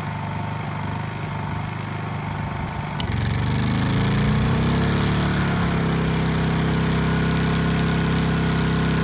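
Honda EU2000i inverter generator running, then a click about three seconds in as a 1500-watt heat-gun load is switched on, and the engine revs up over a few seconds to a louder, steady run under the load.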